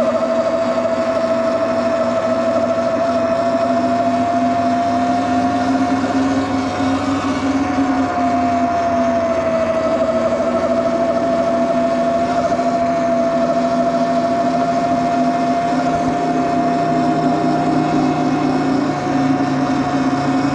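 Electric bike motor whining steadily while cruising, its pitch drifting slightly up and down with speed, over a steady rushing noise.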